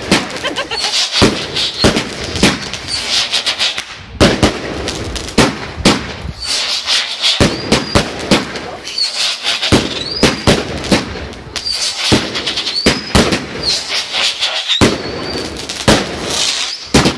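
Fireworks going off in a rapid barrage of bangs and crackling, with short rising whistles cutting through again and again.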